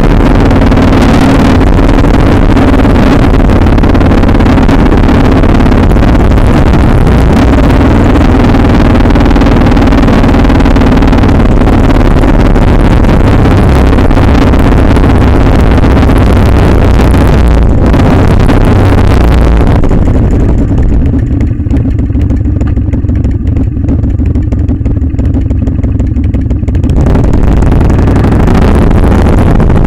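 Harley-Davidson V-twin engine running at road speed, loud, under a dense rush of wind on the camera's microphone. About two-thirds of the way through, the wind rush drops away for several seconds and then comes back, while the engine keeps running.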